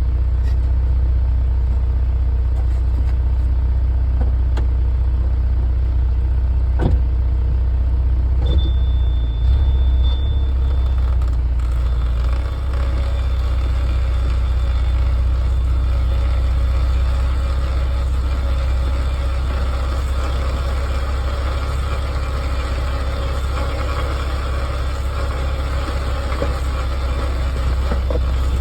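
Steady low road rumble of a 2016 Jeep Cherokee while driving. A thin high whine joins it about a third of the way in, and a humming drone swells through the middle and fades near the end. The owner suspects this noise comes from the rear end.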